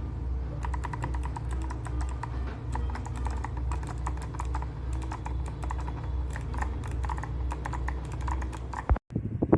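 Fast typing on a mechanical keyboard fitted with clicky Kailh Box White switches: a dense run of sharp clicks over a steady low hum. It cuts off about nine seconds in.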